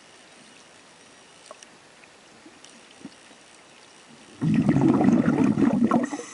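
Faint clicks, then about four seconds in a loud burst of gurgling, bubbling water lasting under two seconds and stopping abruptly.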